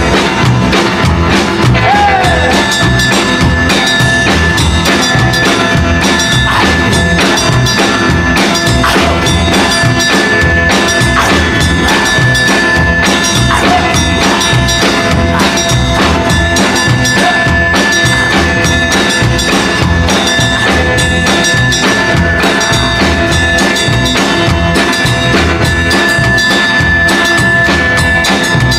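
Country-rock / rockabilly band music with a drum kit keeping a steady beat, and a long held high note running over it from about two seconds in.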